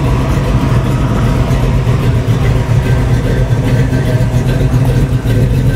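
Street-rod coupe's engine running with a steady low rumble as the car rolls slowly past.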